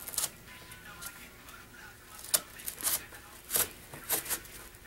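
Box cutter blade slicing through cardboard in several short scraping strokes.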